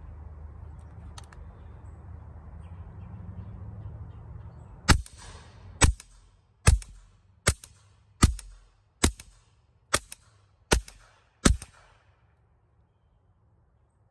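Nine suppressed shots from a Masterpiece Arms 930DMG 9mm SBR fitted with a recored aluminium Form 1 suppressor, firing 165-grain LAX subsonic ammunition. The shots come at a steady pace, a little faster than one a second, starting about five seconds in, each a sharp crack with a short ringing tail.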